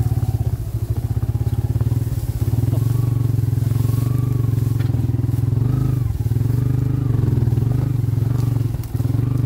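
Motorcycle engine running under throttle as the bike is ridden, the revs rising and falling several times, with brief easings of the throttle about six and nine seconds in.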